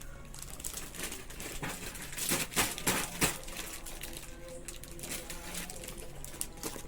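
Hands handling a small action camera: scattered clicks and knocks, with a cluster of louder clicks about two to three seconds in.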